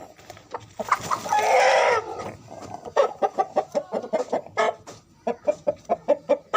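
Chicken sick with a snoring respiratory illness, clucking in rapid short calls, about five a second, while it is held and its throat is rinsed with warm water. About a second in there is a loud harsh burst lasting about a second.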